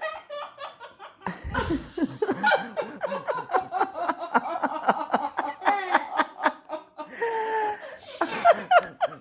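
Hearty laughter, in quick breathy bursts that run on almost without a break.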